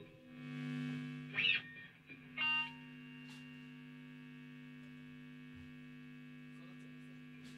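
Stratocaster-style electric guitar played through distortion: a note swells up, two sharp strums come about a second apart, then the chord is held and rings on steadily.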